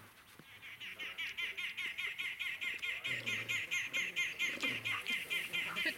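Spotted hyena giggling: a long, rapid run of high-pitched chattering notes, about five or six a second, growing louder. It is the giggle of a hyena under pressure from mobbing wild dogs.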